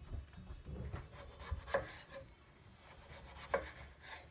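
Chef's knife slicing the rind off a cantaloupe on a wooden cutting board: soft scraping of the blade through the rind, with two light knocks of the knife on the board.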